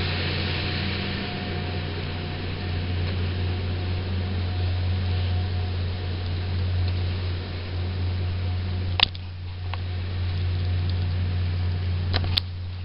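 Steady low drone of the sternwheeler's engine heard from the deck, with a light hiss of wind and water. Sharp clicks about nine seconds in and twice near the end.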